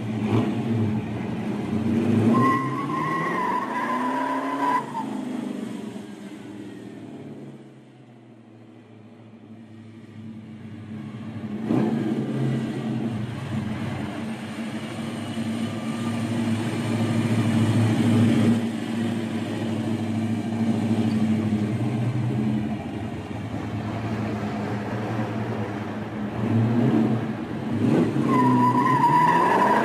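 Custom 1965 Chevy Impala's 377 Chevrolet V8 with dual four-barrel carburetors revving and running as the car drives and turns, with the tyres squealing for a couple of seconds about two seconds in and again near the end. The engine fades away for a few seconds in the middle and then builds back up.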